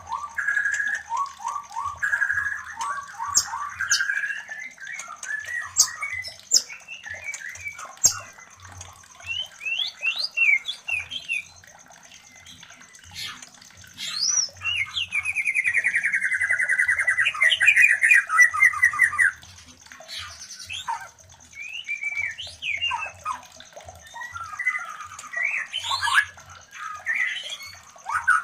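White-rumped shamas calling and singing in the chatter of a mating pair, with quick whistled phrases and harsh notes. A long rapid rattling trill falls slowly in pitch for about five seconds near the middle. A steady high-pitched whine runs underneath.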